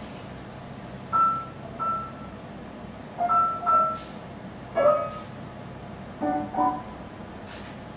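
Sparse, hesitant piano notes: about seven short single notes and small chords struck one at a time with pauses between them, over a steady low hum.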